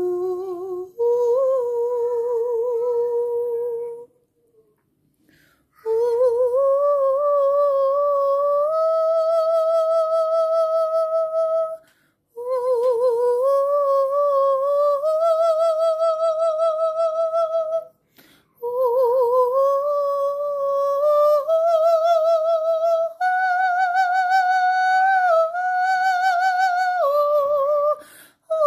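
A high solo voice in wordless vocal toning: long held notes with wide vibrato, stepping upward in pitch. It comes in four phrases separated by short pauses.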